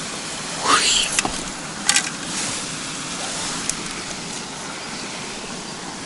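Small forest stream flowing steadily, with a brief swish about a second in and a couple of short clicks at about two seconds.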